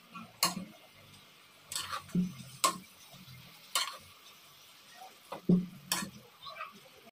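Steel spoon stirring chopped cauliflower greens in a steel kadai, clinking and scraping against the pan about seven times at uneven intervals.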